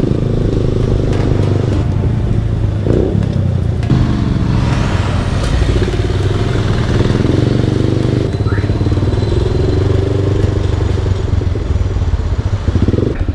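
Sport motorcycle engine running at low road speed close to the microphone, its revs rising and falling through slow traffic.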